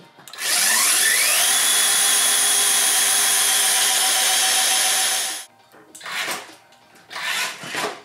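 The 60 V electric chainsaw motor fitted to the pocket bike, run through its speed controller: it spins up with a rising whine, holds at a steady high pitch for about five seconds, then stops abruptly. A few short, quieter sounds follow.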